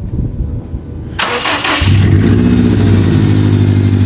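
Subaru WRX STI's turbocharged flat-four being cranked and catching just under two seconds in, then settling into a steady, loud idle. This is the first start of a freshly swapped-in engine.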